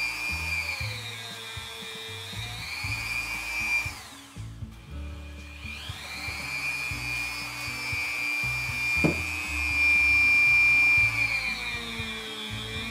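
Dremel rotary tool with a buffing wheel running at high speed, its whine sagging and rising in pitch as the wheel is pressed into the internal threads of a steel chuck adaptor plate to polish them. It stops about four seconds in and spins back up a second or two later, then runs steadily and loudest near the end.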